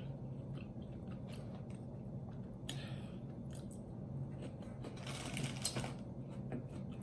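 Close-up eating sounds of a person chewing sauce-covered roast chicken: wet chewing and small mouth clicks, with a louder crunchy stretch about five seconds in, over a faint steady hum.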